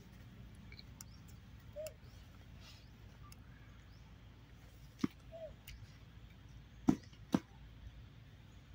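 A few sharp clicks and crackles as a baby macaque handles and picks at a dry fruit stalk on dry leaf litter, with two short faint chirps over a quiet outdoor background.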